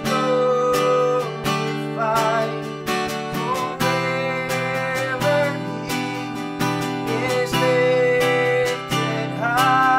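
Worship song: a man singing held, slightly wavering notes over steadily strummed acoustic guitar.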